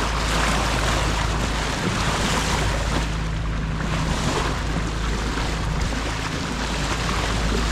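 Water rushing and splashing along the bow of a sailboat under engine power, over a steady low hum from the boat's motor, with some wind on the microphone.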